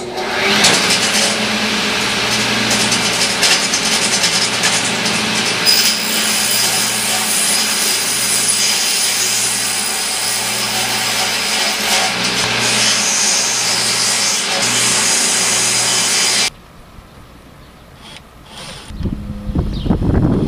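Table saw running and cutting through a wooden board, a loud steady whine of blade and wood that cuts off suddenly about three-quarters of the way in. Then a much quieter stretch, with wind rumbling on the microphone near the end.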